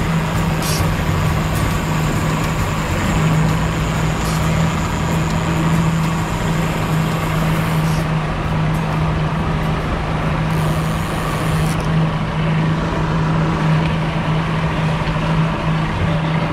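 Mercury outboard motor running steadily at trolling speed: a constant engine hum over the rushing churn of its wake water.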